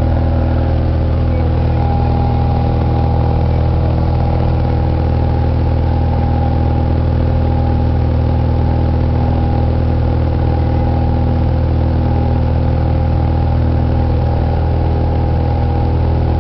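Light airplane's piston engine and propeller droning steadily inside the cabin as it climbs out after takeoff, a constant low, even hum with no change in pitch.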